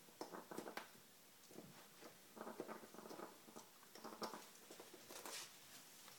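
African grey parrot gnawing and tugging at the rubber backing of a kitchen rug: faint, irregular scratching, nibbling and rustling, with a brief louder swish about five seconds in.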